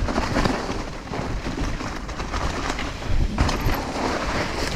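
Mountain bike riding fast downhill over a trail of dry fallen leaves: tyres rolling through the leaves and the bike rattling and knocking over bumps, with a heavy low rumble of wind on the microphone. One sharp knock stands out a little past three seconds in.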